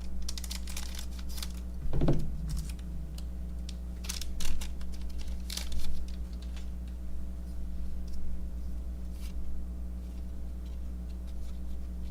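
Hands opening a pack of baseball cards and flipping through the cards: irregular light clicks and rustles of card stock and wrapper, with a few louder crinkles.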